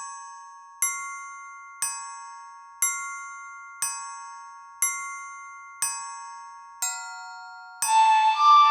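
Struck, tuned metal tones ringing out, one stroke about every second, each fading before the next. Near the end a denser, louder passage with many more tones comes in.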